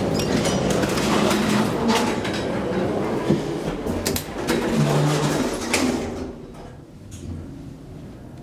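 Metro station noise with a train running, a few sharp clicks from the elevator buttons, and the Schindler hydraulic elevator's doors sliding. About six seconds in the noise drops sharply as the doors close and shut the car off from the platform.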